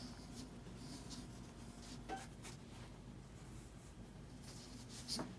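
Faint scratchy rustling of yarn tails being drawn through crocheted stitches with a yarn needle as the ends are woven in, with a few soft ticks, one about two seconds in and one near the end.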